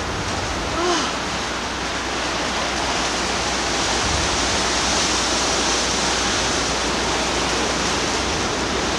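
Steady loud rush of tornado-driven wind on a camcorder's built-in microphone, growing a little louder after a few seconds.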